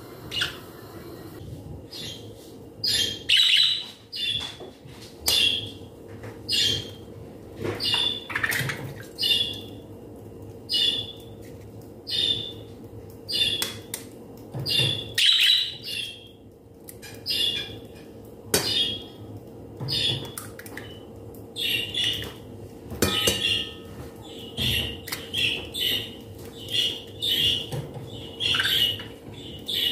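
A bird chirping over and over in short high calls, about one or two a second, with a brief pause partway through. A faint steady hum runs underneath.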